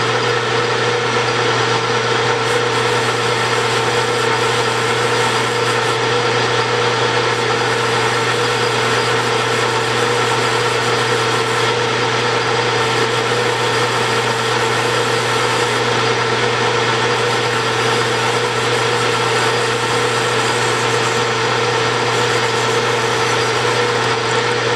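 Metal lathe running steadily with a constant whine while a parting tool, fed by hand, cuts into spinning bronze bushing stock.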